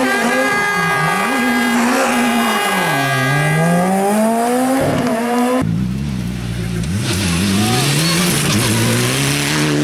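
Rally car engines at hard throttle, revving up and dropping again and again through gear changes, with a steady high whine over the engine in the first few seconds. About halfway through the sound cuts abruptly to a second car, a Mitsubishi Lancer Evolution, revving hard as it drives over rough ground.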